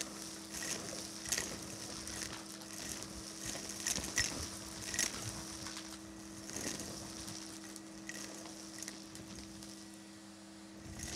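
Vacuum cleaner running with a steady motor hum, its metal wand sucking at carpet debris, with repeated sharp clicks and rattles as bits of confetti and grit are pulled up the tube, easing off near the end.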